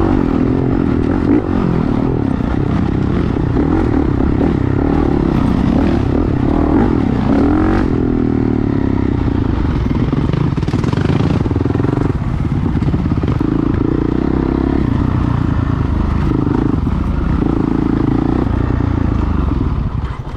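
Dirt bike engine heard up close from the bike being ridden, running continuously. Its pitch rises and falls as the throttle opens and closes, with short dips between pulls.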